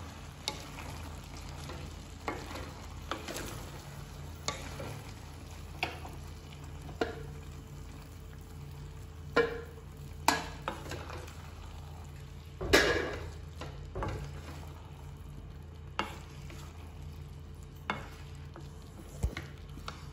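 Pasta being stirred and tossed into vegetables in a metal kadhai with a spatula, with irregular knocks and scrapes of the spatula against the pan every second or two over a faint sizzle and a steady low hum; the loudest knock comes about two-thirds of the way through.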